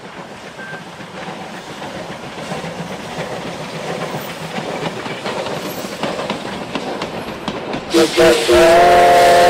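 Steam locomotive and its passenger coaches running past, wheels clicking over the rail joints, growing steadily louder as the train approaches. Near the end the locomotive's steam whistle blows loudly, a short blast followed by a longer held one.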